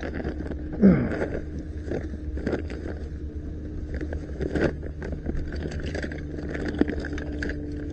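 Black plastic bag rustling and plastic toy figures clicking and clattering against each other as hands rummage through a bag of toys, over a steady low hum.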